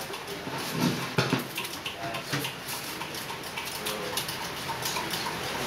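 Indistinct murmuring of a seated audience in a small room, with scattered short taps and knocks.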